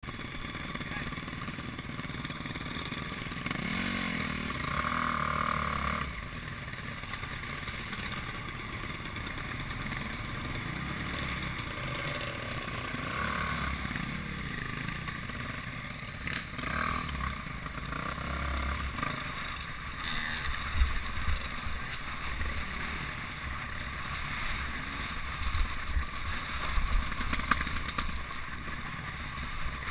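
Dirt bike engine running while riding a trail, with wind noise. Knocks from rough ground come more often in the second half.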